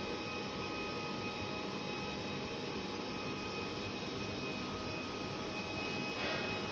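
Steady blowing air noise from a running fan, with a few faint, steady high whining tones on top; it grows briefly louder near the end.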